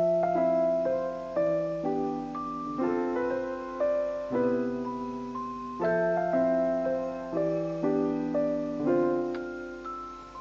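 Slow solo piano background music: single notes and chords struck about once or twice a second, each ringing out and decaying, with the playing dying away near the end.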